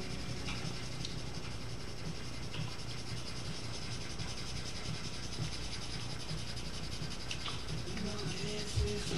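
Charcoal pencil scratching and rubbing steadily on drawing paper as a dark area is shaded in.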